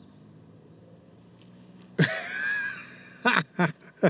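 A man's loud, wordless cry of dismay about two seconds in, followed by a few short vocal bursts, as his par putt misses the hole.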